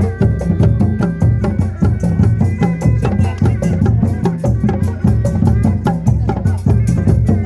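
Kuda lumping ensemble music: loud, fast, dense drumming with a heavy low end, and a few high held tones running over it.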